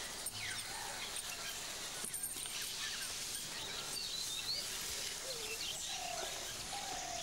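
Steady background hiss of natural surroundings with scattered faint bird chirps and calls, including a few short whistled glides in the second half.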